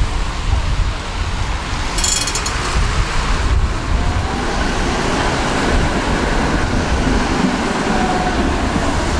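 Articulated tram passing close by: a steady rumble of its wheels on the rails, with a brief high-pitched sound about two seconds in.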